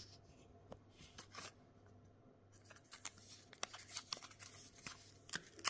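Metallised plastic wrapper of a small wafer bar crinkling and crackling as fingers handle it. The crackles are sparse at first and come in a busy flurry from about three seconds in, with a sharp crackle near the end. A faint steady hum lies under it.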